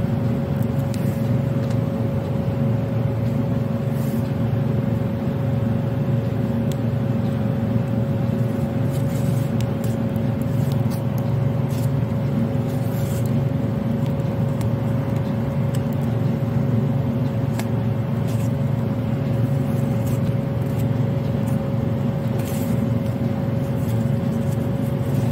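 Steady low mechanical hum with a constant higher whine above it, unchanging throughout, with a few faint ticks.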